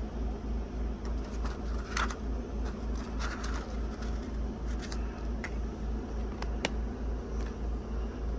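Plastic DVD cases being handled, a few light clicks and rustles, over a steady low mechanical hum that pulses about four times a second.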